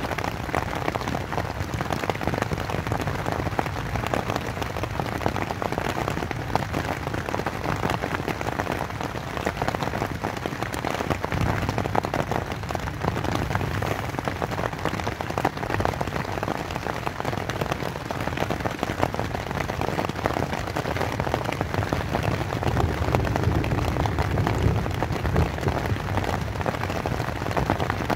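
Rain pattering steadily on a tent's fabric, heard from inside the tent as a dense, even drumming of drops.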